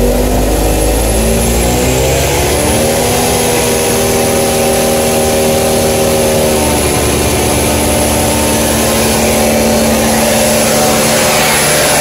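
Semi truck's diesel engine revved up to high speed to drive the air blower that pushes air down a pneumatic tanker's product line to clear a plug; the pitch climbs over the first few seconds and then holds steady. A steady high whine runs alongside the engine, heard from inside the cab.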